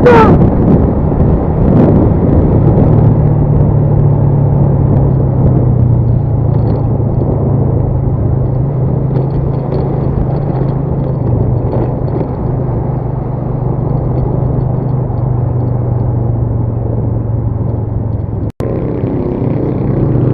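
Motorcycle engine running steadily under wind and road noise, with a brief total dropout near the end.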